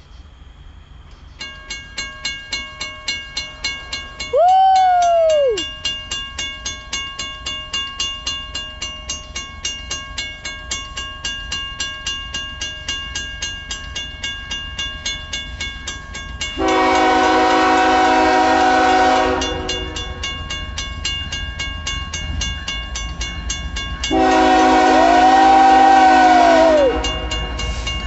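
Grade-crossing bell starts ringing a second or so in, with rapid, evenly spaced dings, as the crossing activates for an approaching BNSF train. Over it the locomotive's multi-chime air horn sounds a short blast about five seconds in, then two long blasts, and a further blast begins near the end.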